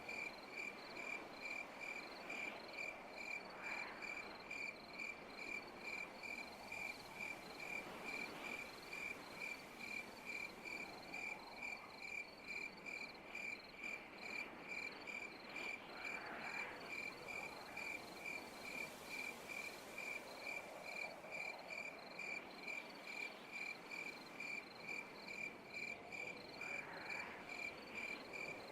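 Night insects: a cricket chirping steadily at about two chirps a second, a high pulsing tone, over a softer chorus of other insects that swells now and then.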